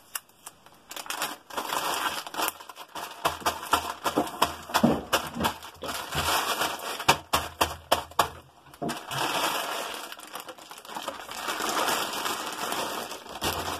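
Clear plastic bag full of jigsaw pieces crinkling and rustling as it is handled and packed into the puzzle box, with many small clicks and crackles and a brief pause about two-thirds of the way through.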